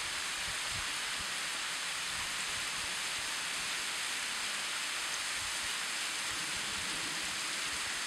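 Steady hiss of a tall waterfall running thin on low flow, its sparse streams falling and splashing down a rock face.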